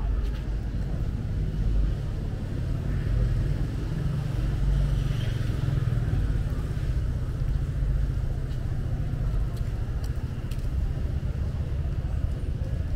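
Low, fluttering rumble of wind buffeting the microphone, over faint outdoor street ambience.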